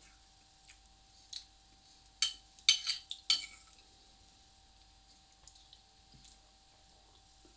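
Fork clinking and scraping against a ceramic dinner plate: a few faint taps, then a quick run of sharp ringing clinks about two to three and a half seconds in.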